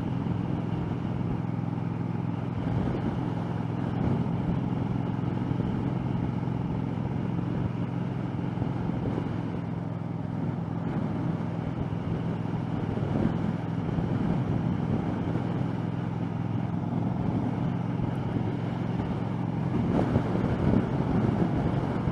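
A 2013 Triumph America's 865cc parallel-twin engine running steadily at cruising speed under the rider, with wind and road noise. A louder rush of wind comes in near the end.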